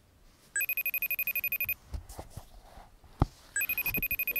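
Phone ringing for an outgoing FaceTime video call: two electronic trilling rings, each about a second long and about three seconds apart. A sharp click falls between the rings.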